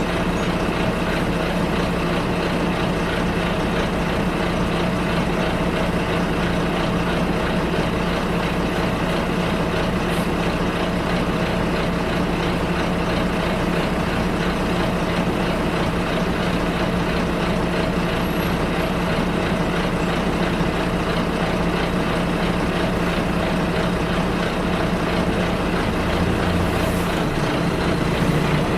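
Bus engine running steadily, heard from inside the passenger cabin as a constant drone over road noise. Near the end the engine note changes pitch and a short high hiss sounds.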